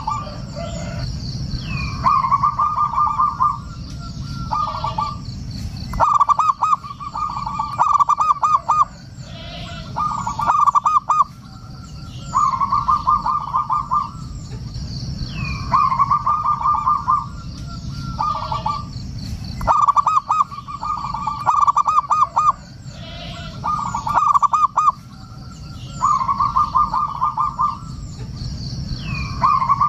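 Zebra doves (perkutut) singing: about a dozen short phrases of rapid, rolling coo notes, each roughly a second long and coming about every two seconds. Faint high chirps of small birds and a steady low background rumble lie underneath.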